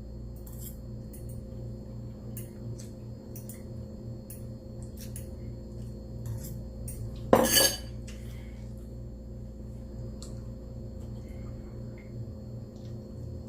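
Cutlery clinking and tapping against a dish during eating, a scattered string of small clicks, with one brief louder sound a little past seven seconds in.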